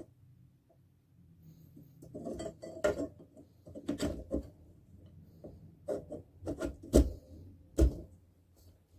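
Frame poles of an animatronic Halloween prop being handled and fitted together: rustling and scraping with a string of sharp knocks and clacks, the two loudest near the end.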